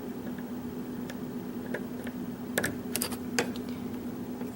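Small, scattered metal clicks and ticks of a lock pick and tension wrench working the pins of a Schlage pin-tumbler lock, over a steady low hum.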